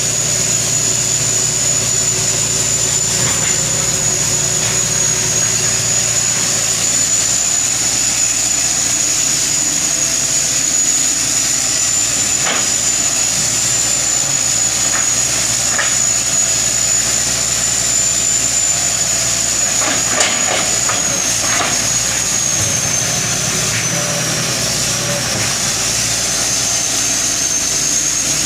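1983 Hitachi excavator's diesel engine running steadily, with a constant high whine over it that dips slightly in pitch about three-quarters of the way through and a few faint knocks.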